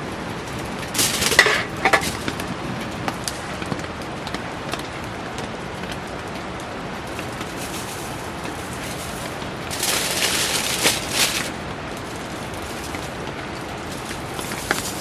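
Steady heavy rain with the crackle of a wood campfire, small pops scattered through it. Twice, soon after the start and again about two-thirds of the way through, a louder burst of noise lasts a second or so.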